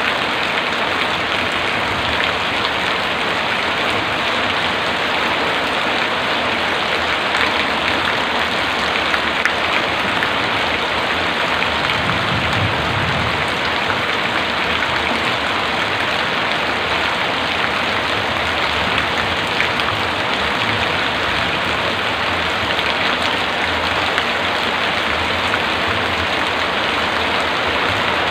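Heavy rain falling steadily, an even hiss of many drops, with a brief low rumble about halfway through.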